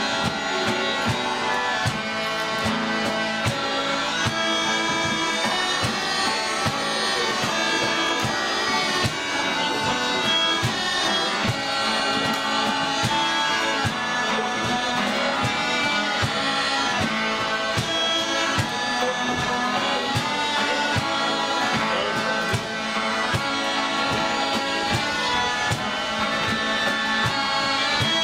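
Scottish smallpipes played together with fiddles and strummed acoustic guitars: a lively traditional tune carried over the pipes' steady drone, with an even strummed rhythm underneath.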